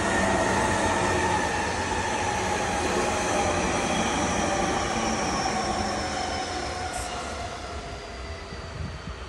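Electric commuter train running past, with a rumble of wheels on the rails and several whining tones that glide slowly down in pitch. It fades away from about six seconds in.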